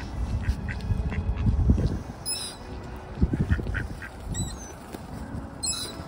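Mallard ducks quacking and chattering close by, with a few short, high-pitched bird calls. A low rumble covers the first two seconds.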